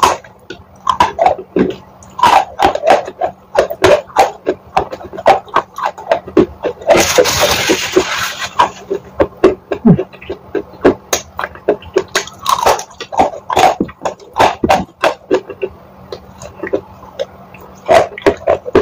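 Close-miked crunching and chewing of wet chalk coated in paste: a rapid run of sharp crunches and wet mouth sounds, with a second or so of hiss about seven seconds in.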